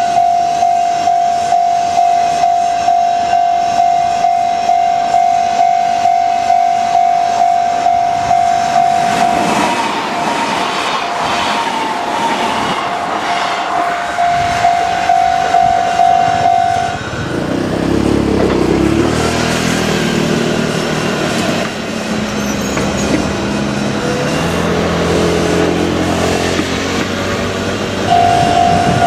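A Japanese level-crossing warning bell ringing at about two strikes a second. About halfway through, the bell drops out under an electric train running over the crossing, its motor whine rising and falling over the rumble of wheels on rail. The bell comes back near the end.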